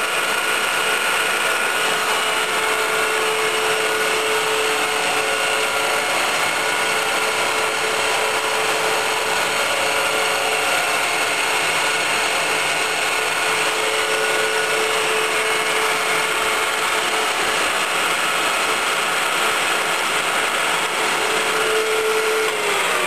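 Colchester Mascot lathe's headstock gearing and spindle running at about 1200 rpm with a large chuck fitted, a steady whine over even machine noise. It begins to slow at the very end.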